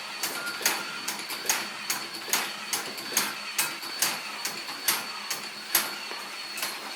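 A small mechanism ticking in a steady rhythm, about two clicks a second with every other click louder, over a faint steady high whine.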